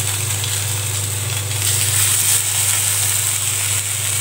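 Egg-soaked bread slices sizzling as they fry in oil on a flat griddle (tawa), a steady hiss that grows a little louder about two seconds in as another soaked slice is laid in the pan.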